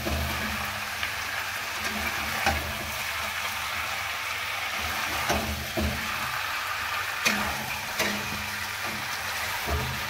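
Chicken pieces and sliced onions sizzling in a hot kadhai, a steady frying hiss, while a metal spatula stirs them, knocking and scraping against the pan a few times.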